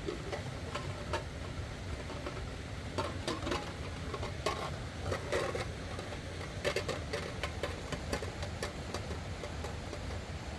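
Irregular small clicks, taps and scrapes over a steady low rumble, thickening from about three seconds in.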